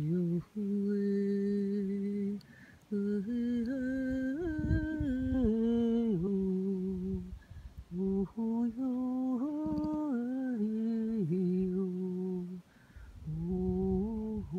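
A person humming a slow, tuneless melody of long held notes that step and glide up and down in pitch, in several long phrases with short breaths between them.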